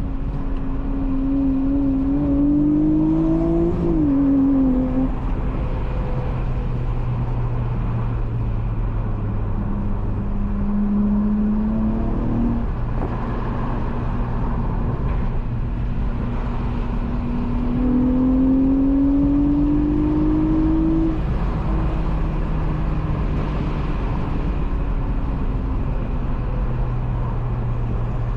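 A Honda Accord's swapped-in J32A3 3.2-litre V6, breathing through a Skunk2 Megapower single-exit exhaust, accelerating through the gears. The engine note climbs and drops abruptly at each upshift, three times (near the start, around the middle and about two-thirds in), and runs at a steadier low drone in between.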